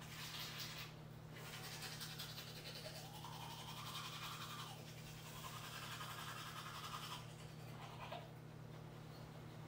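Manual toothbrush scrubbing teeth in a series of brushing strokes, with brief pauses about a second in and again near the end, over a low steady hum.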